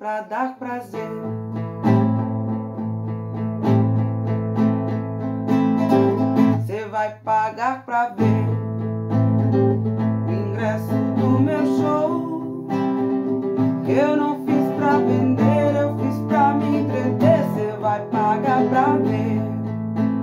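A woman singing to her own acoustic guitar, strumming chords over a steady bass line; her voice comes and goes between guitar passages.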